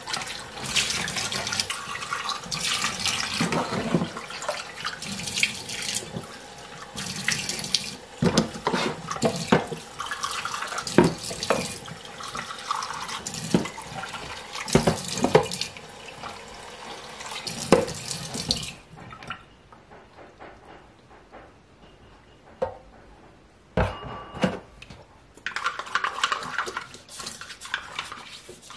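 Kitchen tap running into a stainless steel sink as plastic feeders are rinsed under it, with scattered knocks of plastic against the sink. The water stops about two-thirds of the way through, leaving a few clicks, and near the end a small brush scrubs a plastic feeder.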